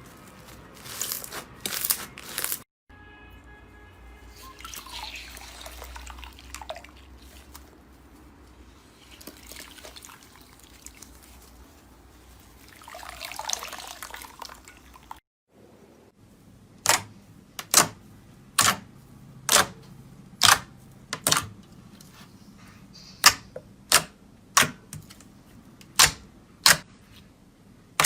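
Slime being squished and pressed by hand: soft wet squelching sounds, then a run of sharp popping clicks, about one a second, as air pockets in the slime burst.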